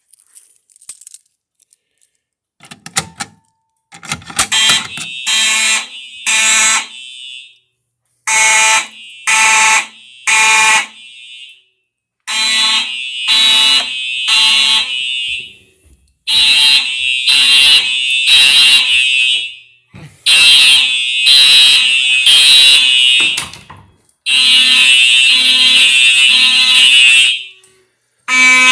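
Fire alarm horns sounding after a manual pull station is pulled, starting about three seconds in. They sound in loud groups of three pulses that repeat about every four seconds, the temporal-three evacuation pattern.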